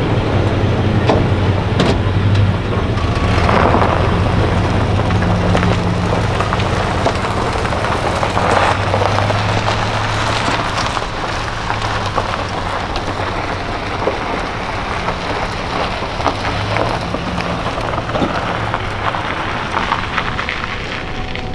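Pickup truck engine running low and steady as it slowly tows a travel trailer away over gravel, with the tyres crunching and popping on the stones. The sound eases a little in the second half.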